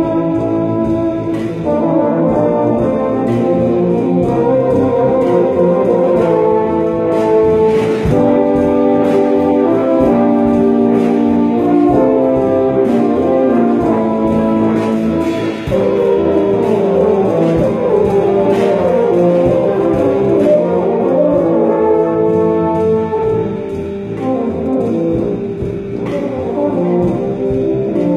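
A large ensemble of tubas playing together: held notes moving in full chords that change about every second.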